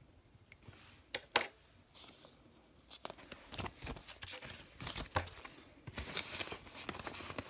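Canadian polymer banknotes being handled and slipped into a cash envelope, heard as crisp rustling and flicking of the plastic notes, with a sharp snap about a second and a half in.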